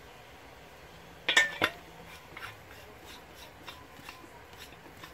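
Two sharp metallic clinks about a second and a half in, a third of a second apart, as hard objects are handled and set down on a workbench. A few lighter taps and handling noises follow.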